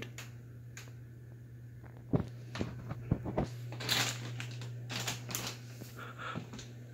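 Encon ceiling fan running on high speed, its motor giving a steady low hum. Several handling clicks and rustles, the loudest sounds, come about two, three and four seconds in.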